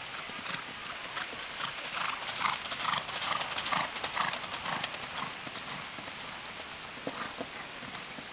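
Hoofbeats of a cantering horse on loose arena footing. They build to their loudest in a quick regular rhythm as the horse passes close, about two to four seconds in, then fade as it moves away.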